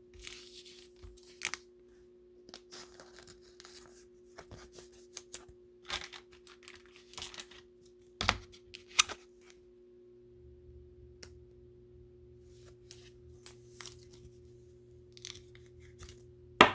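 Crinkly plastic trading-card pack wrapper being torn open and handled, with irregular crackling rustles and clicks as the cards are pulled out and shuffled.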